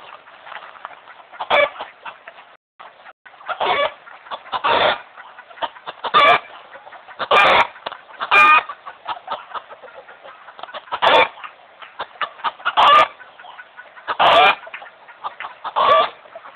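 Domestic chickens clucking: about ten loud, short calls spaced a second or two apart, with softer clucks in between.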